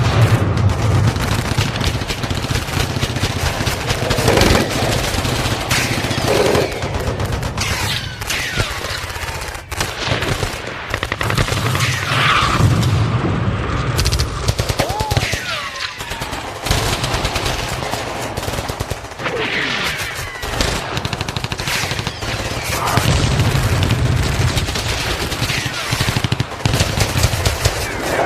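Battlefield sound effect: dense, continuous machine-gun and rifle fire, with low booms of explosions now and then.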